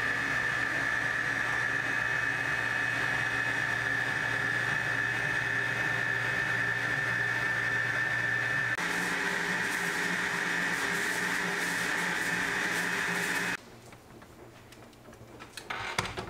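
Electric stand mixer running steadily with a balloon whisk, a high whine over a low motor hum. The sound changes about nine seconds in and stops a few seconds later, leaving faint clicks and a sharp knock near the end.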